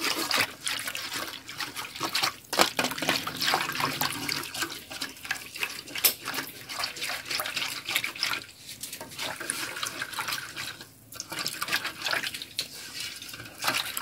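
A whisk stirring a bowl of liquid dough ingredients (warm water, oil, eggs, sugar and yeast), giving quick, irregular sloshing and splashing strokes as the yeast is dissolved; the stirring briefly pauses about eleven seconds in.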